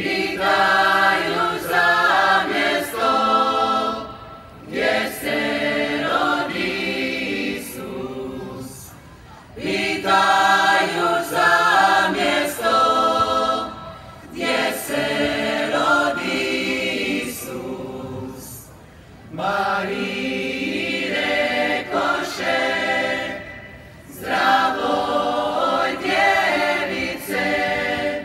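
Folk choir singing a Croatian Christmas carol unaccompanied, in sung phrases of about four to five seconds with short breaks between them.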